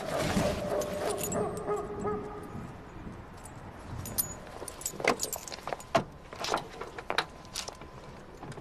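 Keys on a ring with a metal medallion jangling in a hand, with ringing metallic tones in the first two seconds, followed by a few sharp clicks and knocks.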